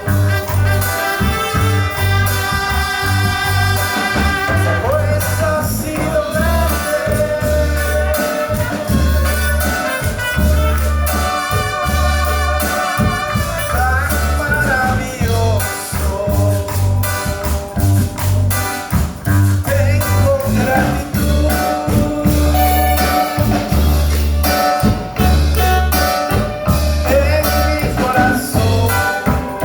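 Worship music with singing over a steady low bass beat, about one a second, and busy percussion.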